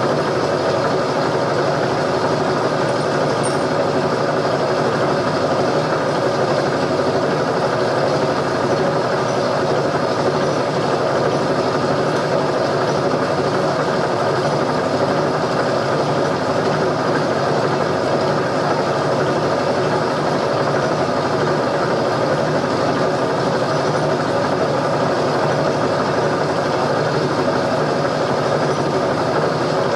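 Steady mechanical drone of a running motor or machine, unchanging throughout.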